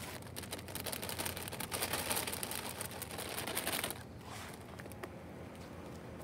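Dense crackling and rustling of spinach leaves being handled, torn and tossed onto the ground, lasting about four seconds and then dying down to a few light scratchy clicks.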